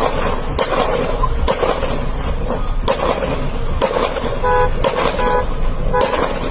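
Car horns honking in short, repeated toots over loud, steady traffic and engine noise, with two clear toots in quick succession past the middle.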